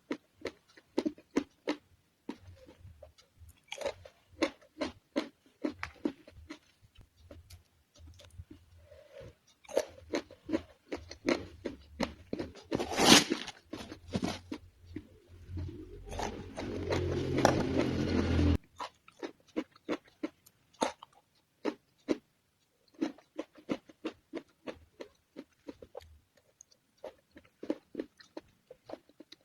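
Close-miked chewing and crunching of raw vegetables, many short crisp bites and chews in a steady run. A louder burst about halfway through, then a louder rough noise for about two seconds soon after.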